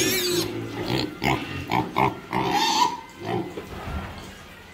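Piglets grunting in short calls, with one longer, higher squeal a little before the middle, then quieter, softer grunts.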